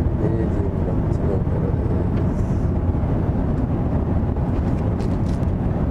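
Steady cabin noise of an Airbus A350-1000 airliner in flight: an even, unchanging low rumble of engines and airflow. A few faint clicks of tableware being handled sit on top of it.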